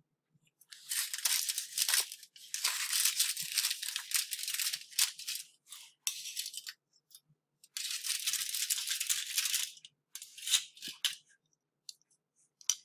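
Aluminium foil crinkling and rustling in three long stretches and several short bursts, as cut squares of fudge are pulled off their foil lining.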